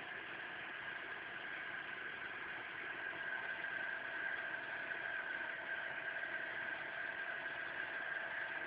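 BMW 318i E46 four-cylinder petrol engine idling steadily after a cold start, with a steady high whine over the running that grows a little louder about three seconds in.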